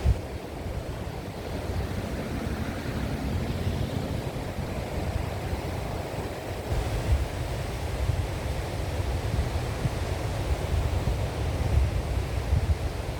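Ocean surf washing in steadily, with gusty wind buffeting the microphone in a low rumble.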